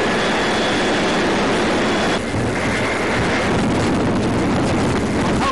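Steady, loud drone of a ship's engine mixed with wind noise on the microphone, with a short dip about two seconds in.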